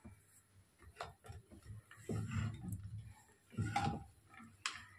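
Wooden spatula stirring watery dal in a pressure cooker pot: scattered taps and scrapes against the pot and wet stirring, in uneven bursts, the louder ones about two seconds in and again near four seconds.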